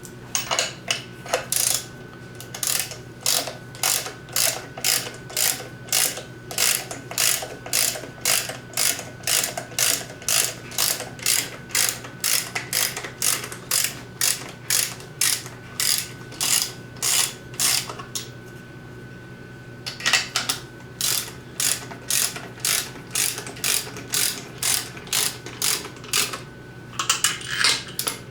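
Ratchet of a torque wrench clicking in quick back-and-forth strokes, about two a second, as water pump bolts are run down to 15 ft-lb. The strokes stop for about two seconds, then start again.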